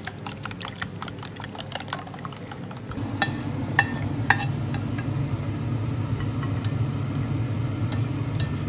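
Quick clicking of a whisk against a glass mixing bowl as eggs are beaten. About three seconds in a steady low hum starts, and a spatula knocks sharply against a frying pan three times as fried mushrooms are tipped into the bowl.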